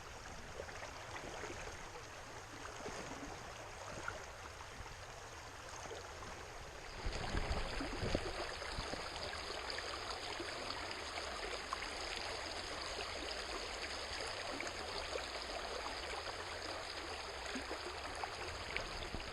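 Flowing stream water, a steady rush. About seven seconds in the sound changes suddenly and grows louder, with a brief low rumble.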